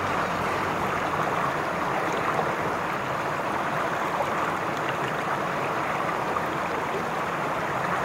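Steady rush of water in a mountain stream.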